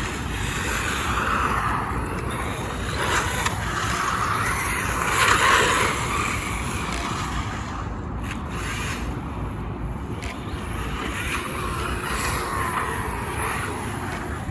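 HAIBOXING 2997a RC car driving, its electric motor and tyres on the ground making a steady noisy rush that swells and fades as it moves, loudest about five seconds in.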